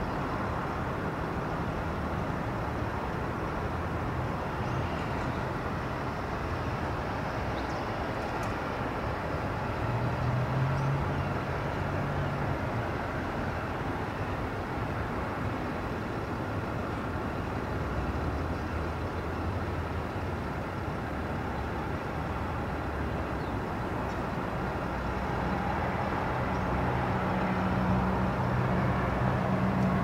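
Steady outdoor background noise with the low hum of distant vehicles. One vehicle hums past about ten seconds in, and another grows louder near the end.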